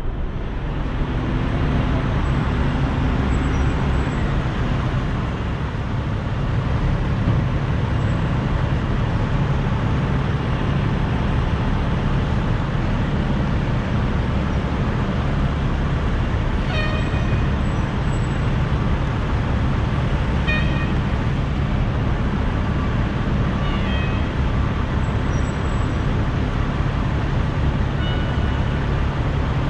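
Downtown street traffic with a steady low engine hum from idling vehicles. A few brief high-pitched tones come through in the second half.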